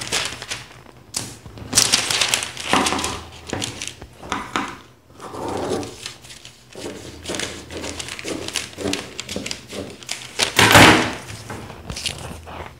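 Scissors cutting through a paper sewing pattern in uneven snips, with the paper rustling and sliding as it is handled; the loudest rustle comes near the end as the cut pieces are moved on the table.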